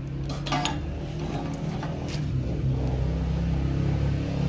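Light metallic clinks of tools and suspension parts being handled while the lower ball joint is being fitted, several in the first second and one about two seconds in, over a steady low hum.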